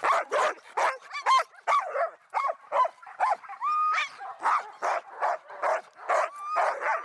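Sled dogs barking and yipping, several sharp calls a second, with a few drawn-out high whines among them.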